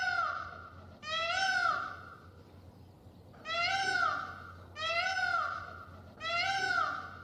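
Cat meowing repeatedly: about five short meows, each rising then falling in pitch, one every second or so with a longer gap in the middle.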